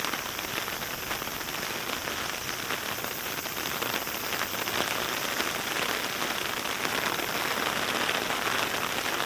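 Heavy rain falling steadily: a dense patter of drops, a little louder in the second half.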